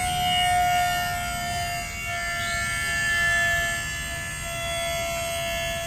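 Electric pump of a lowered 1967 Chevy C10's height-adjustable suspension running with a steady whine, its pitch sagging slightly as it lifts the truck up off the ground toward ride height.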